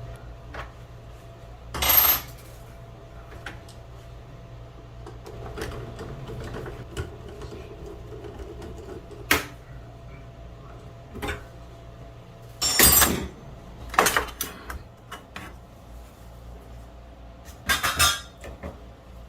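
Metal parts of an Onity hotel door lock clinking and clattering as it is taken apart with a T10 Torx screwdriver: about five sharp clatters, the loudest about two seconds in and again around thirteen seconds, with quieter handling and scraping between them.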